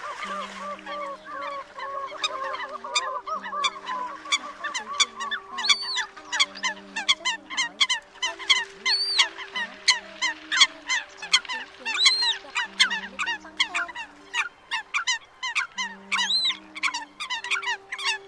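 Eurasian coots calling in a dense chorus: many short, sharp, honking calls, several a second, some rising and falling in pitch. Low steady notes that change pitch run underneath.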